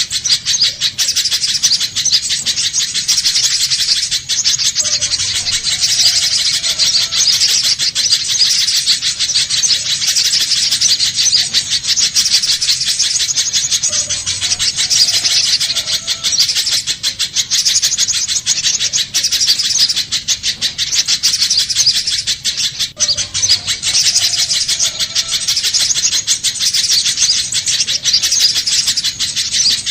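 Little spiderhunter calling: a fast, unbroken stream of high, sharp chirps, with the same phrase pattern coming round again about every nine seconds.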